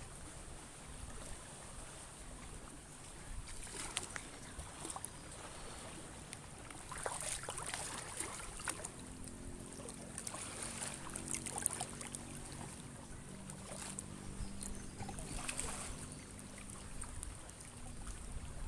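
Shallow river water flowing and rippling, with a few brief louder rushes of splashing. A faint low drone sits underneath in the second half.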